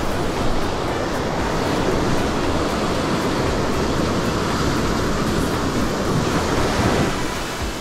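Ocean surf breaking and washing up a sand beach, a steady rush that eases off near the end.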